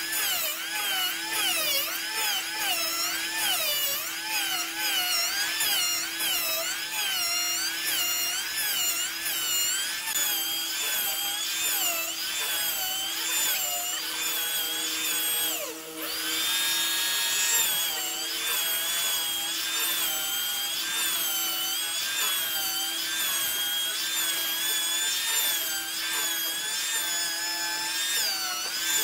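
Handheld electric planer shaving a hardwood slab. Its motor whine dips and rises in pitch with each pass as the blades bite and ease off. About halfway, the pitch and level drop briefly, then it comes back up and runs more steadily.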